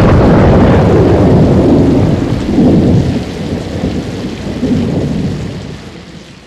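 A sudden thunderclap, then a long rolling rumble of thunder that swells a few times over steady rain and fades out toward the end.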